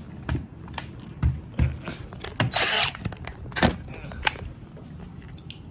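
Hard plastic knocks and clicks as a DeWalt 20V lithium-ion battery pack is handled and slid into the battery slot of a cordless string trimmer, with a short scraping slide about halfway through.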